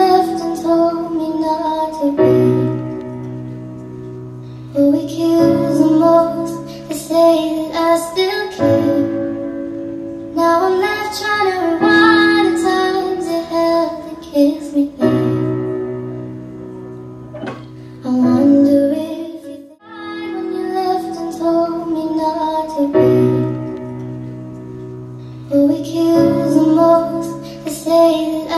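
A song with a woman singing over keyboard accompaniment and a steady bass line; the music breaks off for a moment about twenty seconds in, then resumes.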